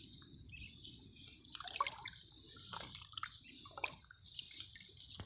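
Faint, scattered drips and small splashes of muddy water, as hands grope and dig in a waterlogged hole for catfish.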